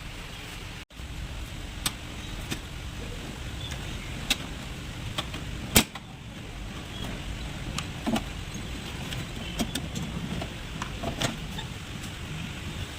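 Scattered sharp clicks and knocks from hand work on a car, over a steady low background noise.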